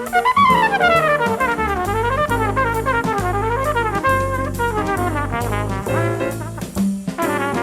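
Jazz music with brass, a trumpet playing quick runs of notes that swoop down and up, over a deep bass line and drums.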